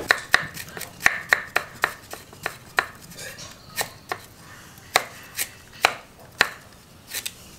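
Kitchen knife chopping fresh ginger into thin strips on a wooden block, a run of sharp knocks as the blade meets the wood, quicker in the first two seconds and then about two a second.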